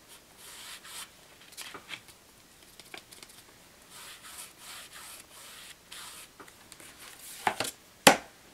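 A foam brush rubbing paint back and forth along a book cover's spine, making soft repeated swishing strokes. Two sharp knocks come near the end, the second the loudest.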